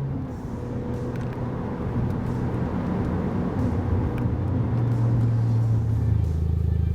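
Ford Focus ST's turbocharged 2.0-litre four-cylinder exhaust note as the car runs, growing louder through the clip. About six seconds in it settles into a steady low drone.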